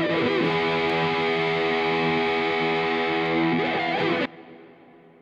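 Background music: a held, sustained chord with sliding notes near the start and just before the end. It cuts off abruptly about four seconds in, leaving a short fading tail.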